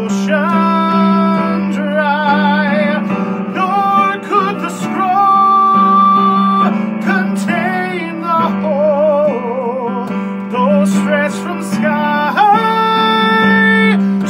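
A man singing a slow song with strong vibrato on long held notes, accompanying himself on an electric keyboard with sustained chords.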